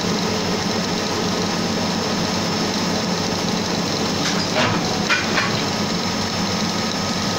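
Extruder of a 5-litre plastic blow moulding machine running steadily as it pushes out the parison, a constant mechanical hum with a steady high tone over it. A few short sharp clicks come about four to five seconds in.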